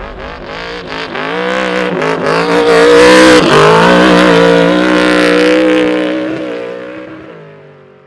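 Off-road race vehicle's engine at high revs, its pitch shifting and dipping briefly about three and a half seconds in, then fading away.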